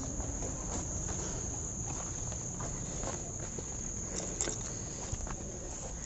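Insects chirring in the forest, a steady high-pitched buzz, over soft footsteps scuffing on a stony, muddy trail.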